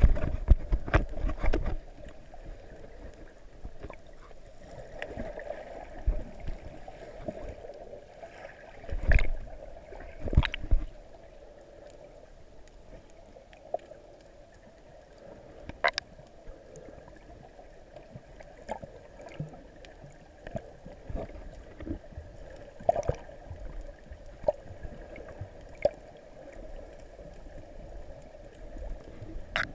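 Underwater sound heard from just below the sea surface: muffled sloshing of water with scattered sharp clicks and knocks. Louder splashing bursts come in the first two seconds, with the swimmer at the surface, and again twice around nine to ten seconds.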